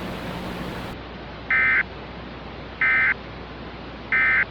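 Emergency Alert System end-of-message (EOM) data tones: three short, identical warbling bursts about 1.3 seconds apart, marking the end of the alert. A steady hiss lies under them.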